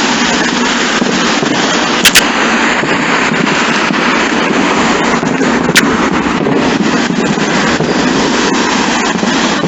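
Fireworks display going off in a dense barrage, many bursts and crackles running together into one continuous rattle, with a few sharper cracks about two seconds in and near six seconds, heard through a basic cell phone's microphone.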